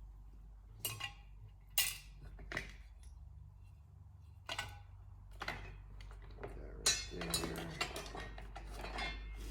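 Small metal muffler hardware from a Stihl MS440 chainsaw being handled and set down: a string of sharp metallic clinks and clatters, sparse at first and coming thicker in the second half.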